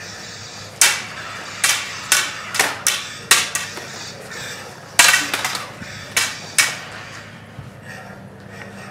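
Hard plastic lightsaber blades clashing in sparring: about ten sharp cracks in quick exchanges, the loudest about five seconds in.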